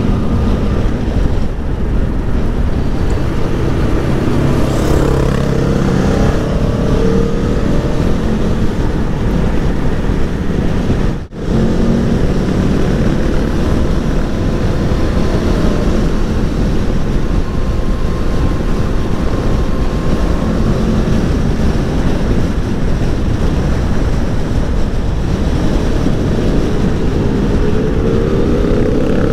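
Wind noise buffeting the microphone at riding speed, with the Aprilia Tuono V4 1100's V4 engine running underneath and rising in pitch as it accelerates, near the start and again near the end. The sound cuts out briefly about eleven seconds in.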